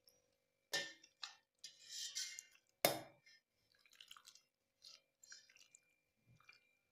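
A metal spoon scraping and clinking against a pressure cooker as thick jackfruit curry is scooped out and slops into a steel bowl. There are a few sharp metal knocks, the loudest about three seconds in, then lighter scrapes and taps.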